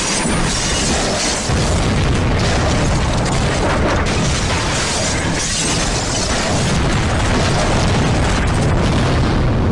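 Loud, unbroken rumbling and crackling noise with a deep low rumble and no pauses: a crash-and-explosion sound effect.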